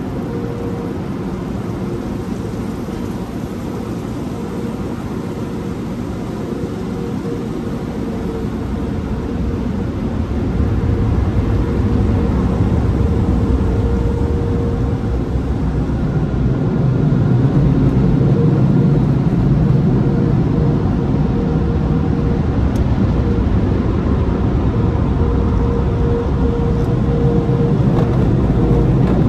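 Express car wash tunnel dryer blowers running, heard from inside the car: a steady rushing blast with a constant hum, growing louder and deeper about a third of the way in as the car passes under the blowers.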